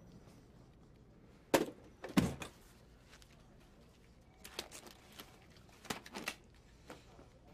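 A few faint clicks and knocks over quiet room tone, a heavier thud about two seconds in and a cluster of lighter ticks in the second half.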